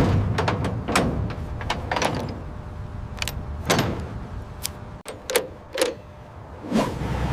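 A series of sharp knocks and clatters over a low rumble, with two separate knocks a little after five seconds in.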